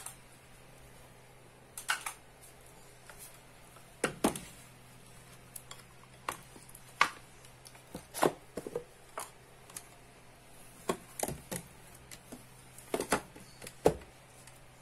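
Small wooden folding table being unfolded and set up, its wooden legs and top knocking and clacking in irregular sharp knocks. A faint steady low hum runs underneath.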